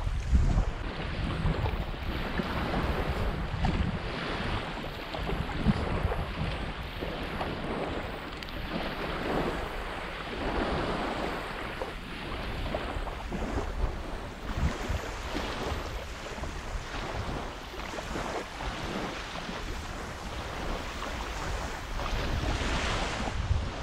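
Wind buffeting the microphone over small waves washing onto a sandy shore, rising and falling in slow swells.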